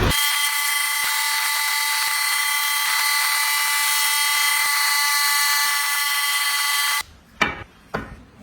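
Small high-speed electric carving tool running steadily with a high-pitched whine. It cuts off abruptly about seven seconds in, followed by a couple of light knocks.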